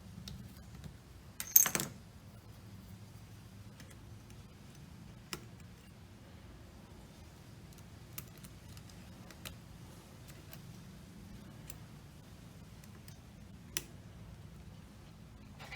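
Small metal repair tools and tiny screws being handled: a brief metallic jingling rattle about a second and a half in, then scattered single light clicks.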